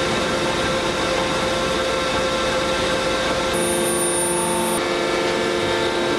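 Automatic four-hammer radial forging machine working a hot titanium bar: a steady, loud mechanical din with several humming tones. The tones change about halfway through.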